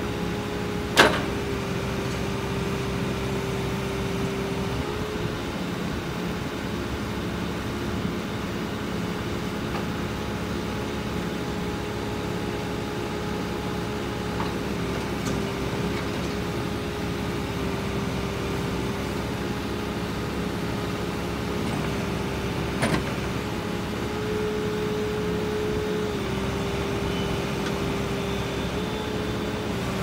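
JCB 3CX loader backhoe's diesel engine running steadily while the backhoe hydraulics are worked, with a steady whine that steps slightly up and down in pitch as the hydraulics are moved. A sharp knock about a second in and another later on.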